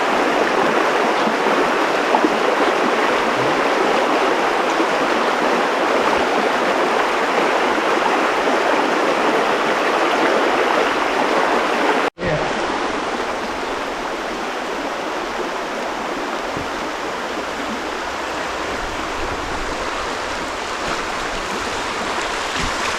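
A stream rushing steadily over rocks. About halfway through, the sound cuts out for an instant and comes back slightly quieter.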